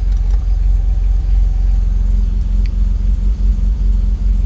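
Audi 2.7-litre twin-turbo V6, swapped into a B7 RS4 and breathing through test pipes and the RS4's stock exhaust, idling steadily, heard from inside the cabin as a deep, even rumble.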